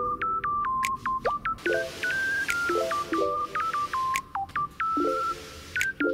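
Background music: a light melody of short, bright notes over soft repeated chords.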